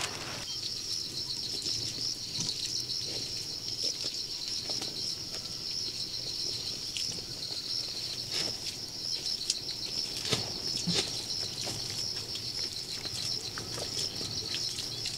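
Steady high-pitched, fast-pulsing buzz of insects, with a few faint knocks and scuffs.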